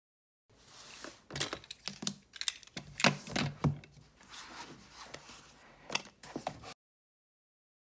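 Close-up handling sounds of a paperback being set down and opened on a desk: rustling paper and cover, with irregular crisp clicks and light taps. The sounds cut off suddenly near the end.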